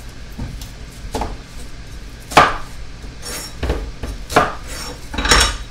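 A cleaver chopping an onion on a wooden cutting board: about five separate, irregularly spaced knocks of the blade against the wood, the loudest about two and a half seconds in and near the end.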